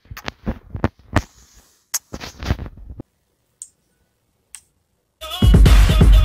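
A quick run of kiss smacks, lips puckered close to a phone microphone, for the first three seconds. Then a pause, and loud music with heavy bass starts about five seconds in.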